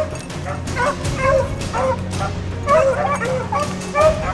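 A pack of beagles baying while running a rabbit: several hounds giving voice at once, with many short overlapping bawls a few times a second.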